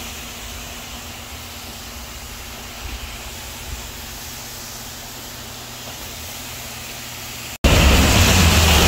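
Geera pork sizzling in a cooking pot: a steady hiss with a low rumble underneath. About seven and a half seconds in, the sound drops out for an instant and comes back much louder.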